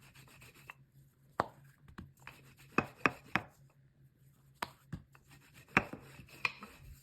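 Rolling pin rolling out a potato-stuffed paratha on a floured board, with scattered soft knocks and rubs as the pin moves and touches the board.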